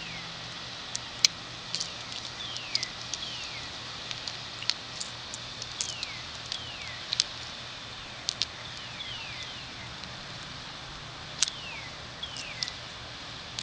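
Birds calling outdoors: repeated short chirps that slide down in pitch, about one a second, with scattered sharp ticks over a steady low hum.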